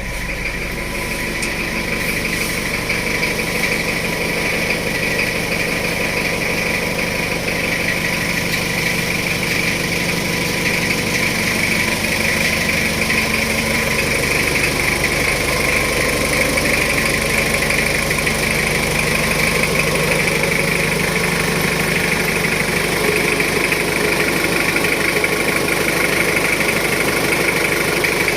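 Jeep Wrangler engine idling steadily after a start, with a steady high whine over the engine note.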